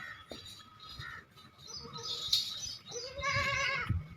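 A newborn goat kid bleats once near the end, a high, wavering call lasting under a second. Birds chirp in the background.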